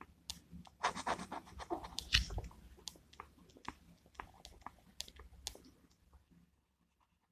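Scattered clicks and rustling of small objects being handled, dying away about six seconds in.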